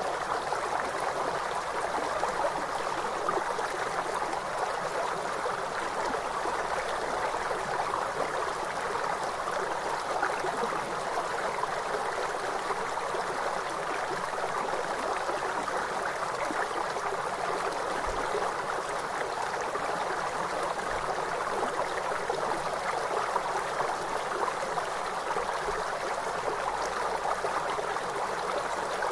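River water rushing steadily, an even, unbroken wash of flowing water.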